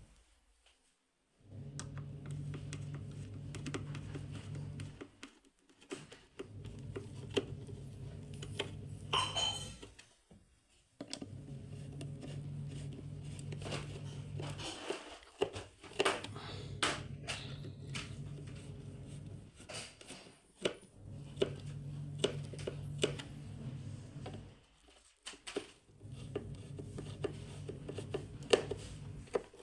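Screwdriver driving screws through a subwoofer driver's metal frame into a wooden speaker cabinet: scattered metallic clicks and scrapes over a steady low hum. The sound breaks off briefly about every five seconds.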